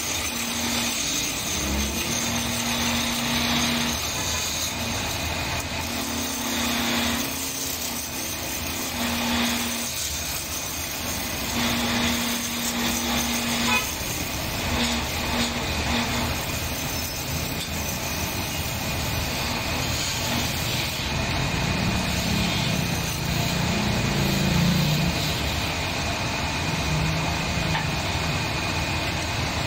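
Homemade wood lathe spinning a wooden blank while a hand-held chisel cuts into it, a steady hiss of shavings coming off. A low hum comes and goes in stretches underneath.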